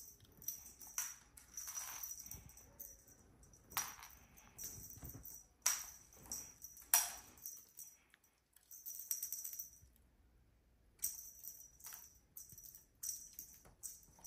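Cat wand toy jingling in irregular bursts as it is flicked and dragged, with a few sharp knocks in between and a short lull near the end.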